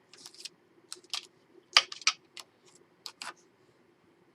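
Paper crackling as the backing liner is peeled off double-sided score tape on a scored paper page, in several short bursts, the loudest about two seconds in.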